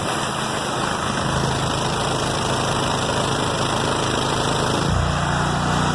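Gas pressure washer spraying through a no-name aftermarket nozzle: a steady high-pressure water hiss over the engine running under load. About five seconds in the spray stops and the engine settles back to its steady unloaded note.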